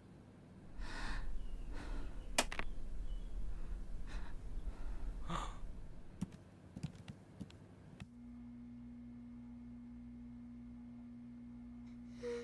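Breathy sighs with a sharp click about two and a half seconds in. About eight seconds in, the sound changes suddenly to a steady low hum.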